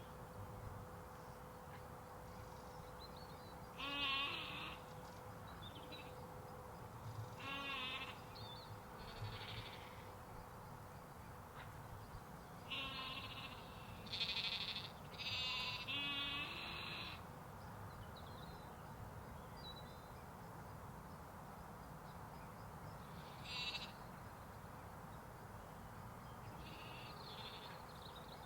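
Sheep and lambs bleating, scattered wavering calls with a close run of several in the middle, over a steady low outdoor background hiss.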